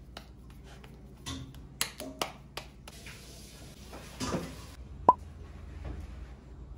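Soft crackles and rustles of thin plastic sheets and light knocks from a wooden tortilla press as raw tortilla dough is pressed and peeled off the plastic. A single sharp pop about five seconds in.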